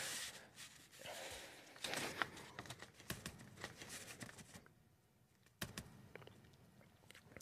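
Faint rustling and soft clicks in a quiet room: a soft hiss at the start, then scattered clicks and rustles, a near-silent gap about two-thirds of the way in, and a few last clicks.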